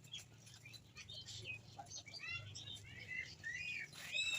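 Small birds chirping, a run of short notes that rise and fall in pitch, with a louder falling call near the end.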